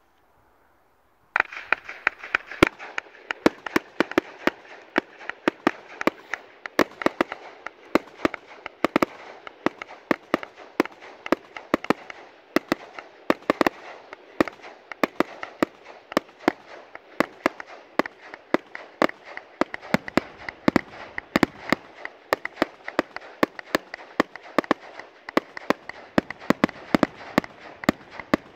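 Category 4 firework cake firing a continuous barrage, starting suddenly about a second in: a steady hiss and crackle under many sharp bangs, several a second.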